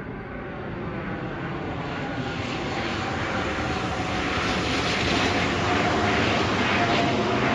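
Low-flying business jet passing overhead: the engine noise swells steadily to a loud roar, with a faint whine that slowly falls in pitch.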